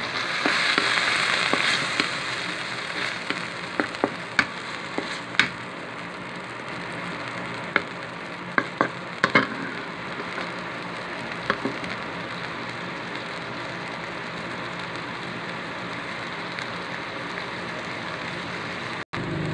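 Canned tuna with onion and garlic sizzling in oil in a metal wok, loudest for the first couple of seconds. A wooden spatula knocks and scrapes against the pan now and then as the mixture is stirred.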